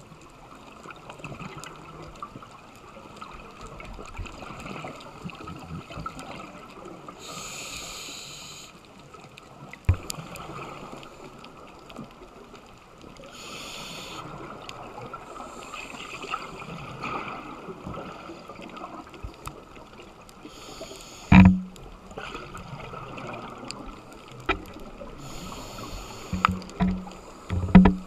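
Scuba diver breathing through a regulator underwater: bursts of bubbling exhalation about every five to six seconds over a low steady hiss. A few loud thumps come in the last seven seconds.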